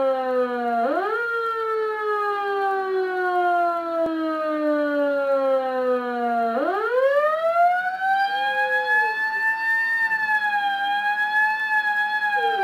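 Fire truck siren wailing: its pitch climbs quickly about a second in, slides slowly down for several seconds, climbs again about halfway, then holds high and wavers.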